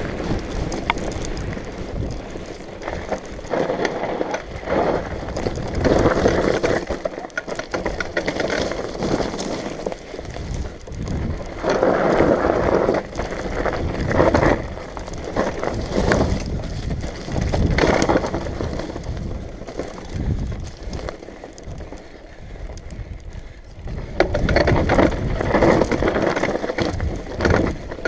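Bicycle rattling over a rough trail on a fast descent, its tyres rolling and bumping on the ground in irregular louder surges.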